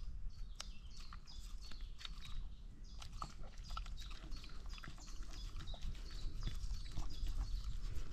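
A dog eating a treat: irregular crunching and clicking as it chews.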